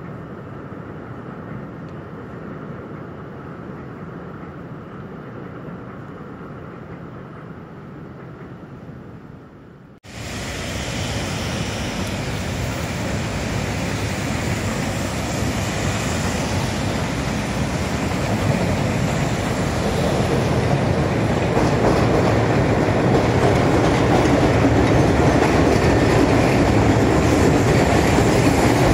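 Chicago 'L' rapid-transit train running on the steel elevated structure, a steady rumble of wheels on track. About a third of the way in it cuts to a louder rumble and clatter that keeps growing as another train comes over the elevated.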